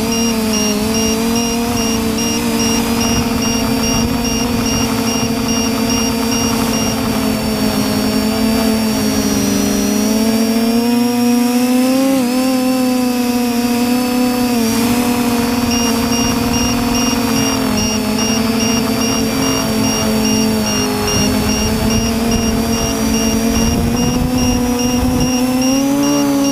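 TBS Discovery quadcopter's brushless motors and propellers whining loudly and continuously, the pitch wavering up and down as the throttle changes, heard from the camera mounted on the quad, with a low rumble of wind underneath.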